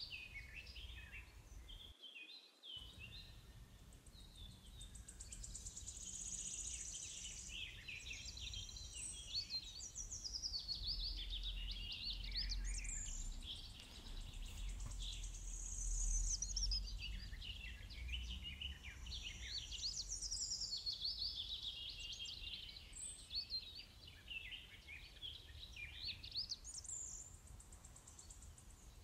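Several birds singing and chirping at once: a continuous stream of short high trills and quick rising and falling notes, over a faint low rumble.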